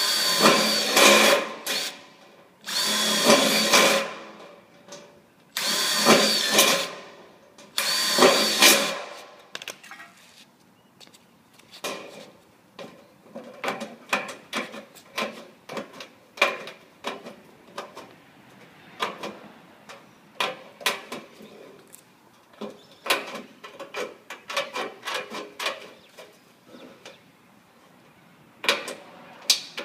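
Cordless impact driver drilling into a sheet-steel gutter in four short bursts, each with a high whine, over the first nine seconds. After that, tin snips cutting the gutter steel: a long run of sharp, irregular clicks as the blades bite and close.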